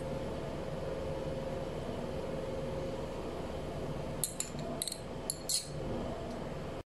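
Steady low room hum, with a few faint light clicks about four to five and a half seconds in.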